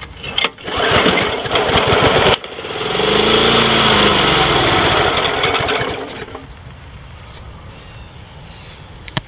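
Snapper Big 6 mower's 6 hp Briggs & Stratton engine, pull-started, catches and runs. Its speed surges up and then sags away until it dies about six seconds in. This is an engine that has sat outdoors for years and runs on a squirt of fuel, on a leaking carburetor whose float is stuck.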